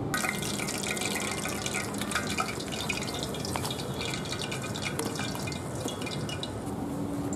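Hot oil sizzling and crackling with dense fine pops as battered pieces of bull stomach deep-fry. The crackle eases off near the end.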